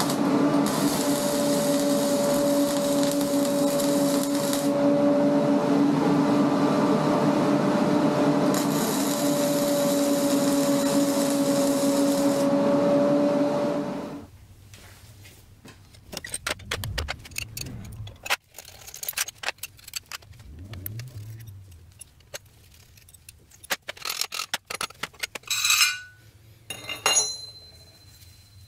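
Arc welding of steel: a steady hum with two spells of sizzling arc crackle, each about four seconds long. About halfway through this gives way to quieter handling of the welded steel bracket, with scattered clicks, light metal clinks and a few short metallic rings.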